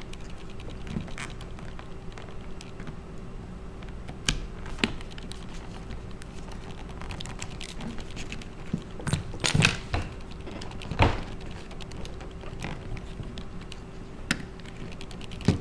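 Scattered light clicks and taps from handling an iPhone 3GS while its front panel is prised up with a suction cup, over a faint steady hum.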